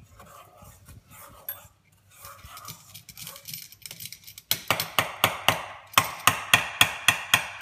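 A metal utensil stirring pancake batter in an enamel mixing bowl. At first it scrapes softly, then about halfway through it clinks sharply and quickly against the bowl, about four times a second.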